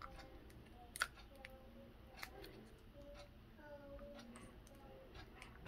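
Faint clicks and crinkles of a disclosing-tablet wrapper being picked at with fingernails and then bitten at, trying to tear it open, with one sharper click about a second in.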